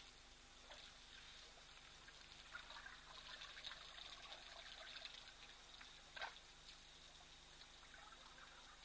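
Faint trickling and splashing of water from elephants drinking and wading in a waterhole, with one sharp click about six seconds in.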